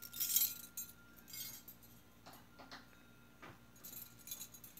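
A handful of metal chain necklaces and bracelets jingling and clinking as it is handled and put away. The loudest jingle comes right at the start, followed by a few light clinks and another short jingle near the end.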